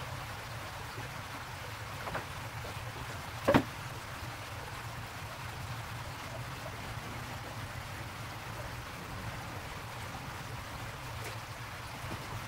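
Steady rush and trickle of circulating aquarium filtration water. One sudden loud slap about three and a half seconds in, with two fainter ones.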